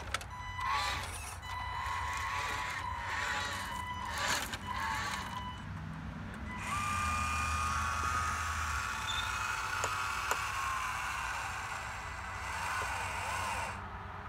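Diecast Masters radio-controlled Western Star dump truck working its dump bed, with small electric motors running. In the first five seconds a wavering high tone comes with short clattering bursts, and from about six seconds in a steadier motor sound with gliding tones runs until near the end, as the bed comes down.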